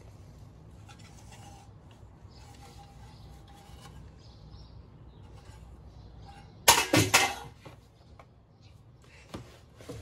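A loud, brief clatter of hard parts knocking together with a short ringing, about seven seconds in, as computer parts are handled against the metal case; otherwise only a faint low room hum.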